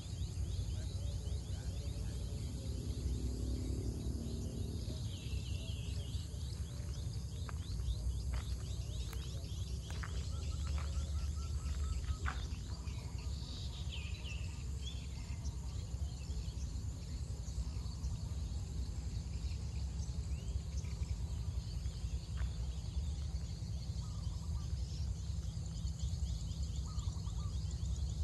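Rural outdoor ambience: a steady low rumble under a constant chirring of insects, with a few short bird calls about four seconds in and again about halfway through.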